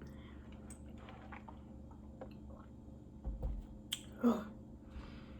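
Close-up eating sounds: wet chewing and mouth clicks. There is a low bump a little past three seconds, and the loudest moment is a short voiced mouth noise about four seconds in.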